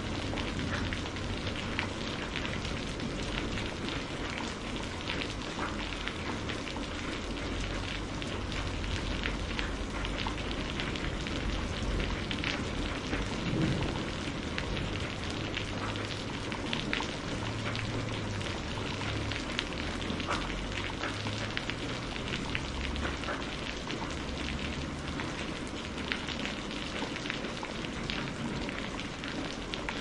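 Steady rain falling, with individual drops ticking through it and a low rumble underneath.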